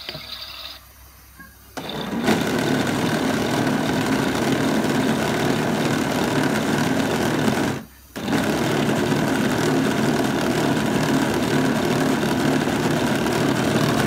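Smart toy washing machine running, a steady grinding whir from its drum mechanism that starts about two seconds in and cuts out briefly about eight seconds in.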